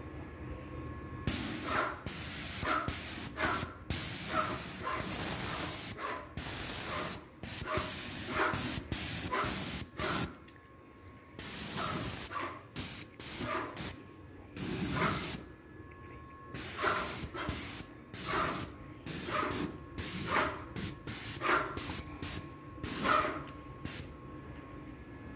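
Paint spray gun hissing in many short bursts, each under a second or two, as the trigger is pulled and released while spraying paint. A faint steady whine sounds in the gaps between bursts.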